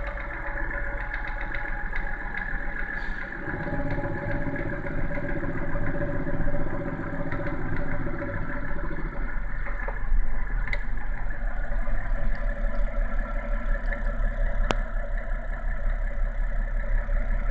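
BMW N52B30 3.0-litre straight-six engine running at idle, with the knock the owner hears after a cold start, which goes away once the engine warms and the idle drops. Its lower note fills out for several seconds starting about four seconds in.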